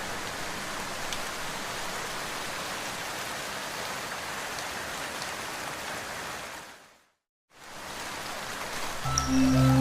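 Steady rain falling, an even hiss. It fades out to a moment of silence about seven seconds in, then fades back in. Music starts again near the end.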